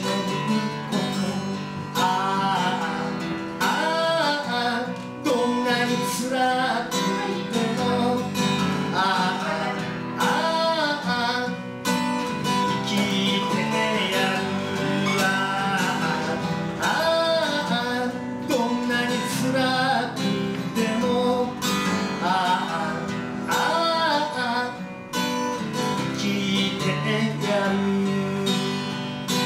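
Acoustic guitar strummed steadily in a live solo performance, with a melody line gliding over the chords.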